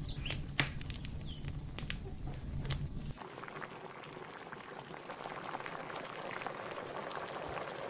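Wood fire crackling under the pot, with sharp pops over a low rumble. About three seconds in this gives way to a steady bubbling of the melocotón atol boiling in the open pot.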